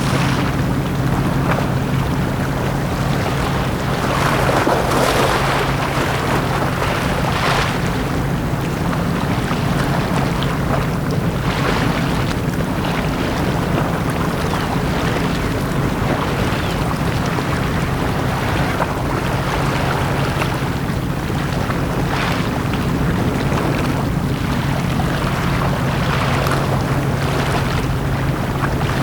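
Sea waves washing in on a beach, each surge rising and falling every few seconds, over a steady low hum.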